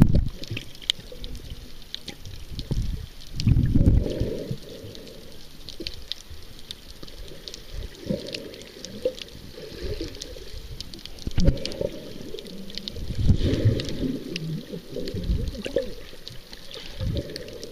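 Muffled underwater sound picked up by a submerged camera: low surges of water rushing around it every few seconds, with scattered faint ticks and crackles.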